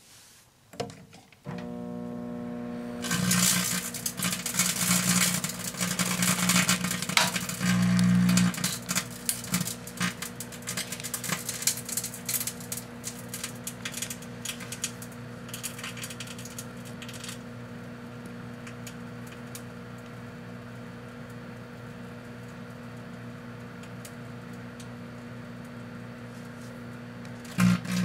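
Proctor-Silex microwave oven running with its steady electrical hum, while steel wool sandwiched between two CDs arcs inside with dense crackling and snapping. The crackling is heaviest in the first several seconds and thins out after about halfway, leaving mostly the hum. The hum grows louder again near the end.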